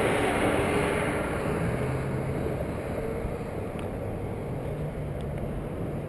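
Road traffic: a city bus pulling away, its engine and tyre noise fading over the first two seconds, then a steady hum of traffic.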